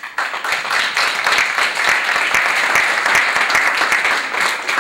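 Audience applauding, many hands clapping; it starts abruptly and holds steady.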